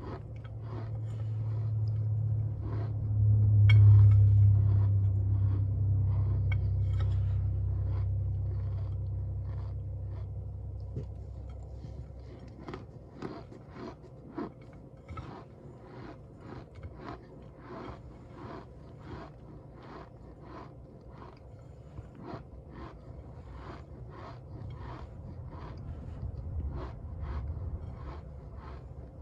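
Packed cornstarch being crunched and squeaked, short sharp crunches coming about twice a second through the second half. A low rumble underlies the first dozen seconds or so.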